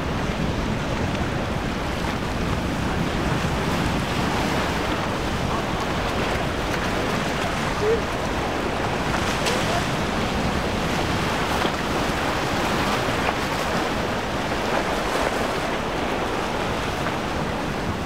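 Steady rush of wind buffeting the microphone over waves and surf breaking in rough water.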